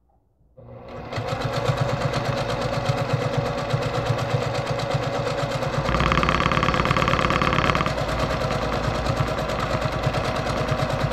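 Brother PQ1500SL straight-stitch sewing machine starting up about half a second in and running fast, with a rapid even needle rhythm, as it free-motion quilts through a quilt sandwich. It gets louder and brighter for about two seconds past the middle.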